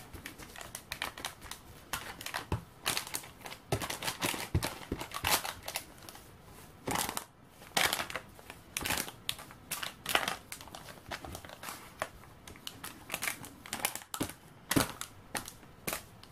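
Baking paper lining a loaf tin crinkling and rustling in irregular short crackles as a spatula pushes and smooths sticky seed dough into the corners.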